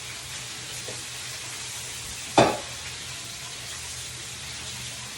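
Chicken wings frying in a pan, a steady sizzling hiss, with one sharp clank about two and a half seconds in.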